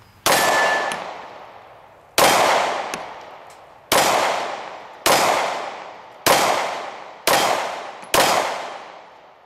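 Seven shots from a Glock 43 9mm subcompact pistol, fired one at a time and coming faster toward the end, each followed by a long echo dying away.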